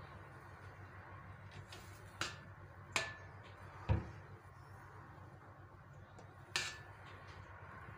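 A spoon knocks against a stainless steel mixing bowl while cake batter is stirred: four sharp clinks spread over several seconds, three of them with a brief metallic ring from the bowl and one a duller thump, over a faint low hum.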